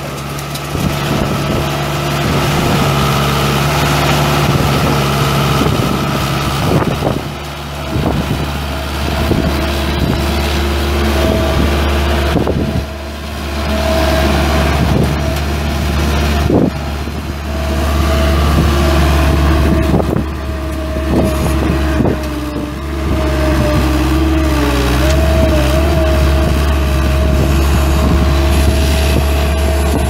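The four-cylinder diesel engine of a John Deere 270 skid steer running steadily, with a steady high whine on top that wavers in pitch for a moment about two-thirds of the way through. A few short knocks are heard in the first half.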